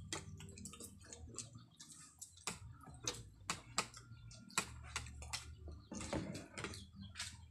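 Spoons and forks clinking and scraping on plates while eating, a string of irregular light clicks.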